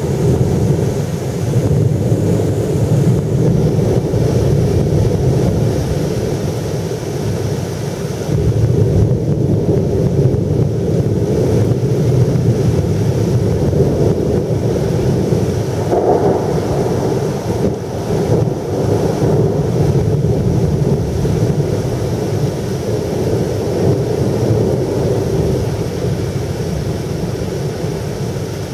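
Long rolling thunder from a severe thunderstorm: a continuous low rumble that builds suddenly at the start, swells and ebbs for nearly half a minute, and eases off near the end.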